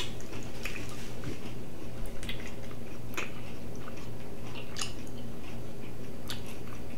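Close chewing and biting on a sauced chicken wing: irregular small clicks and crunches from the mouth.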